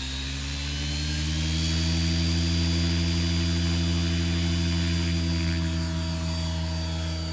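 Align T-Rex 550L electric RC helicopter spooling up: the rotor and motor hum rises in pitch over the first couple of seconds, then holds steady at head speed, with a faint high motor whine above it.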